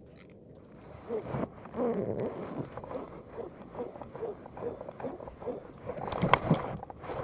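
Conventional jigging reel cranked by hand right at the microphone, its handle turning with rubbing and clattering in an uneven rhythm of about two to three strokes a second, starting about a second in, with a sharper click near the end.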